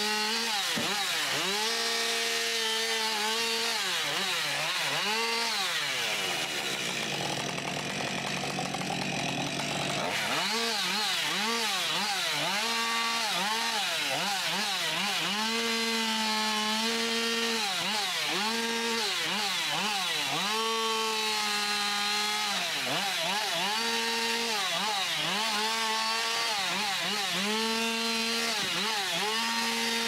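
Husqvarna 550 XP Mark II 50 cc two-stroke chainsaw bucking sawmill slab wood into firewood, its engine revving up and down again and again as cut follows cut. About a quarter of the way in, for a few seconds, the engine's pitch gives way to a rougher sawing noise.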